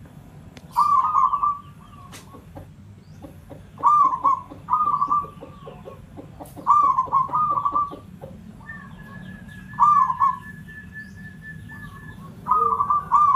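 Zebra dove (perkutut) cooing: short rippling, trilled coos, about seven in all, some coming in quick pairs a second or two apart.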